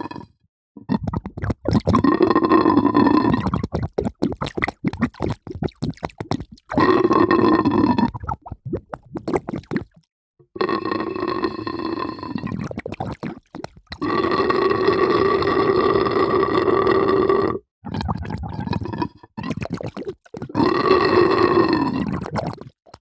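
Water gurgling in a series of bubbling bursts, each a second to a few seconds long with short breaks between, with a hollow, resonant tone.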